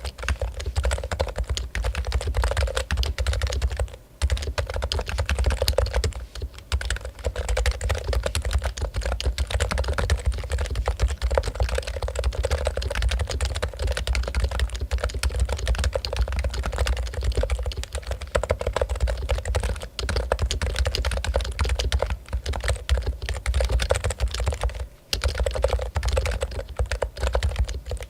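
Continuous fast typing on a Topre Realforce keyboard, whose electrostatic capacitive rubber-dome switches give a rapid, dense stream of keystrokes. Brief pauses come about four and six seconds in and again near the end.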